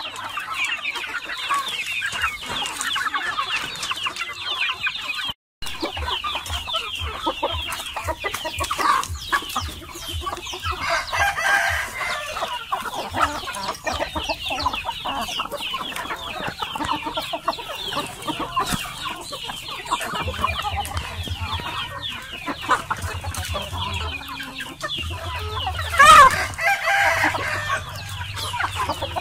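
A flock of young chickens clucking and calling continuously as they peck at corn sprouts, with one loud rooster crow near the end.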